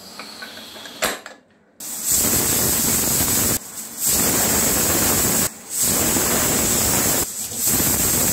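A Diamond aluminium pressure cooker whistling: a click about a second in as the whistle weight is seated on the steam vent, then four loud spells of shrill steam hiss broken by short gaps. Each whistle is steam venting past the weight once the pressure has built, counted to time the rice's cooking.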